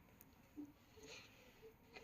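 Near silence, with a few faint soft rustles and taps.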